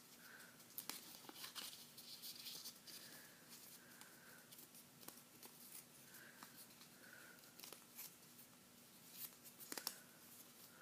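Faint crinkling and rustling of a sheet of paper being folded and creased by hand, with scattered small crackles.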